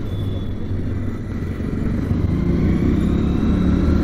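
Motorcycle engine running while riding in street traffic. It grows louder and fuller about two seconds in.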